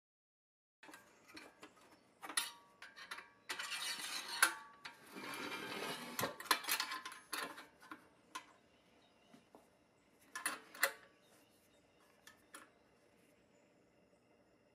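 A thin steel rod sliding and scraping through the holes of a pressed-steel toy trailer bracket, with light metal clinks and clicks. The scraping is loudest in the middle, and two sharp clicks come a few seconds later.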